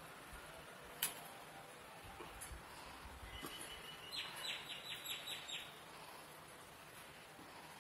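A bird calling: a quick run of about eight short chirps, about four seconds in, over faint outdoor background noise. There is a single sharp click about a second in.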